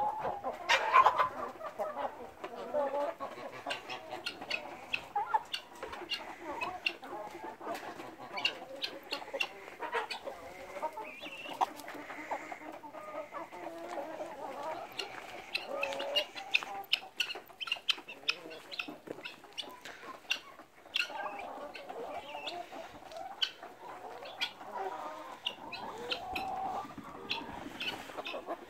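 Chickens clucking continuously, with many short sharp clicks scattered throughout.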